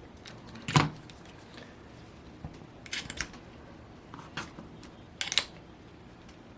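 A few sharp clicks and light clatter of small hard parts and tools being handled and set down on a workbench, the loudest about a second in.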